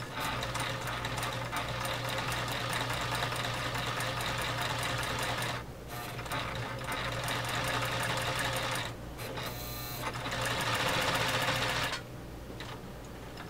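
Omega 307 sewing machine stitching along a zipper, running in spurts with short breaks about five and a half and nine seconds in. The stitching stops near the end.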